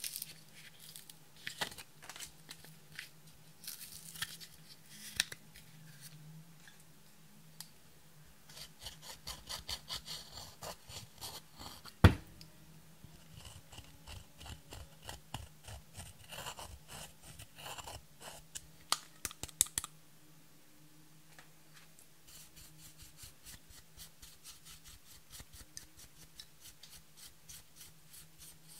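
Pressed eyeshadow being scraped and crumbled out of its palette pans with a pointed tool: a long run of small clicks, scratches and crunches, with one sharp knock about twelve seconds in. A faint steady hum lies underneath.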